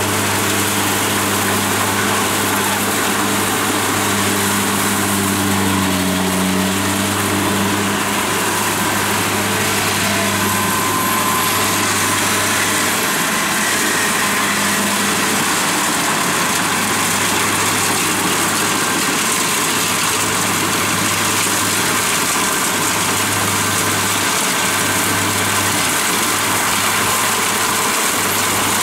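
Kubota DC-70 Plus combine harvester's diesel engine running steadily under load while the machine cuts and threshes lodged rice. The pitch dips briefly about six seconds in.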